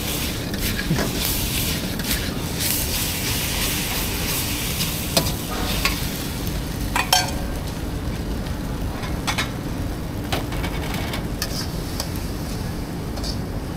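Chow mein noodles sizzling as they are stir-fried in a wok over a gas burner, with a metal ladle scraping and knocking against the wok several times. The sizzle thins out in the last few seconds as the wok comes off the flame.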